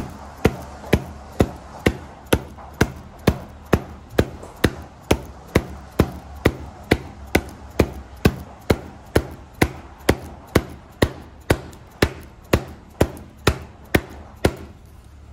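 A mallet tapping a glued rubber patch onto a bicycle inner tube resting on a stack of magazines, with even, regular blows about two a second that stop near the end. The tapping presses the patch firmly onto the tube so that it bonds.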